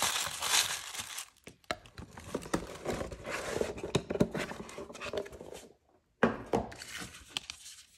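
Tissue paper crinkling and rustling as it is stuffed back into a cardboard mailer box, with small knocks of cardboard being handled as the box is closed and moved. A single sharp knock about six seconds in.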